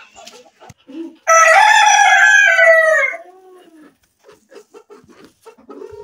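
A rooster crows once, about a second in: one long call of nearly two seconds that drops in pitch at the end. Quieter chicken clucks and small knocks follow.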